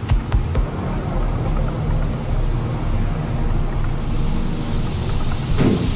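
Steady rushing drone of a commercial kitchen's extractor hood fan running, with a few light knocks near the start.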